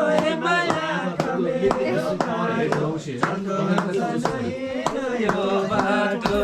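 A group of voices singing a chant-like devotional song to steady hand claps, about two or three claps a second; it cuts off suddenly at the end.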